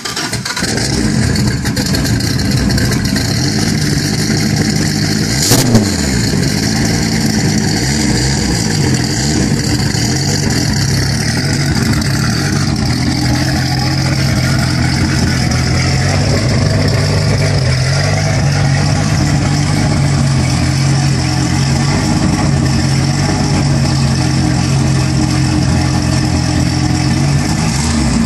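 Very high-horsepower (about 1500–1700 hp) engine idling loud and lumpy just after start-up, with one sharp crack about five seconds in.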